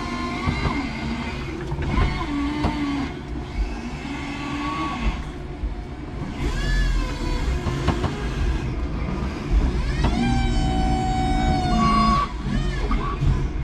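5-ton electric forklift's electric motors whining in several short spurts as the forks and mast are worked and the truck moves, over a steady low rumble. Near the end a longer whine rises, holds for about two seconds, then stops.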